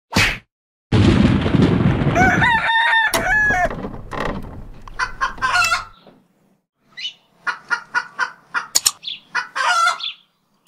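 Logo-intro sound effects: a short swish, then a loud noisy burst of about two seconds, then several rising-and-falling animal calls, then runs of rapid short call notes.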